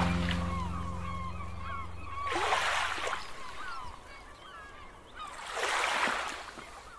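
Small waves washing onto a sandy beach twice, each rushing in and dying away, while many birds call in short rising and falling cries. A held music chord fades out over the first few seconds.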